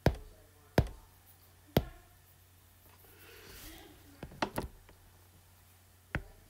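Apple Pencil tip tapping on an iPad's glass screen: about seven sharp, irregular taps, three of them in quick succession a little past the middle.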